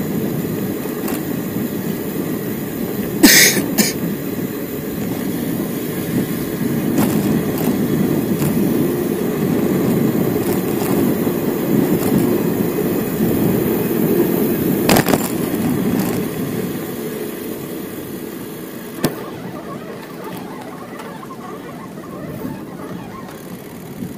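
Wind and rolling road noise on a camera riding along on a bicycle: a steady low rushing that fades over the last several seconds. Two sharp rattles come about three seconds in and another at about fifteen seconds.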